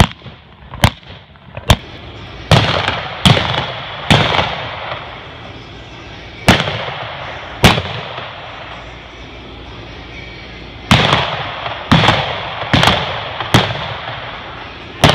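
Single-action revolvers firing black-powder blanks at mounted-shooting targets from galloping horses: about a dozen loud shots in irregular runs of two to five, each cracking sharply and then ringing on briefly.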